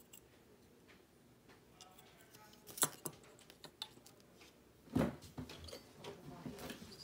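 Small taps and clicks of a bare printed circuit board and resistors being handled and set down on a table, with a sharp click just under three seconds in and a louder knock about five seconds in.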